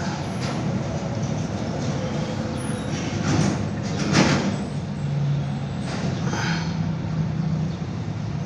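A steady low mechanical hum runs underneath, with a few short scuffs and rustles in the middle as a cloth rag is rubbed around the engine's crankshaft oil seal and timing cover.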